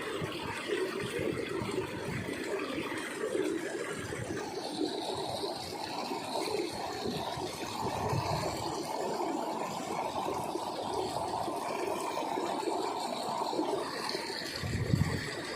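Steady rushing of fast-flowing water in a small irrigation ditch, with a brief low thump near the end.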